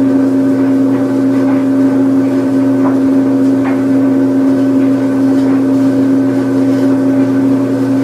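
Washing machine running its spin cycle: a steady motor hum with one strong tone and a few weaker ones above and below it, and a couple of faint ticks a few seconds in.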